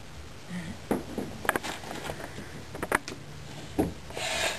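Rummaging through things in a closet: a few scattered knocks and clicks of objects being handled, and a short rustle near the end.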